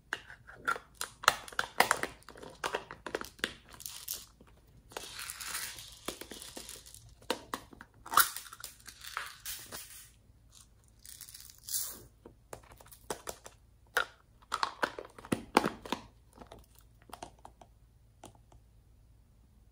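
Hands handling small plastic slime tubs, prying and peeling their lids: a run of crackly plastic clicks and crinkles, with a longer rustle about five seconds in.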